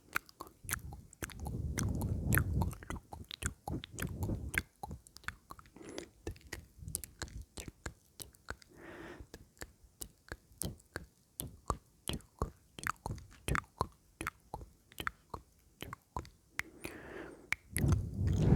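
Close-miked ASMR mouth sounds: a steady run of wet clicks and lip smacks, with a few louder low rushes near the start and again near the end.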